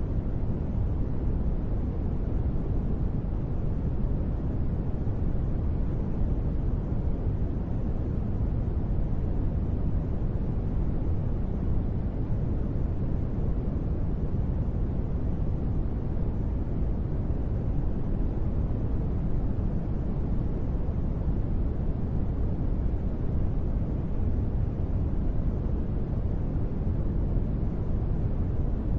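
Steady, low-pitched white noise presented as gentle rain, even and unchanging, with no separate drops or thunder.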